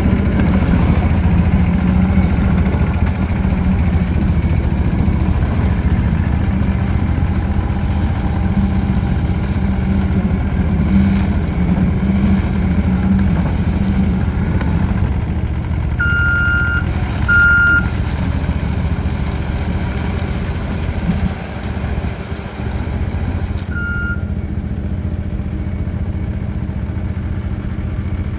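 Gehl RT210 tracked skid steer's turbo diesel engine running steadily, with its note dropping a little about two-thirds of the way through. Short high alarm beeps sound twice past the middle and once more near the end.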